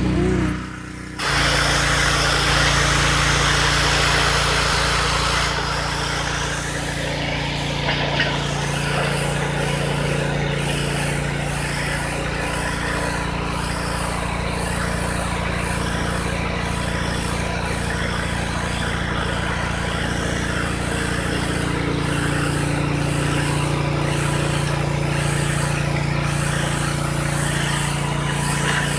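Pressure washer running steadily, its high-pressure jet hissing as it blasts dirt off concrete. The sound dips briefly in the first second, then holds steady.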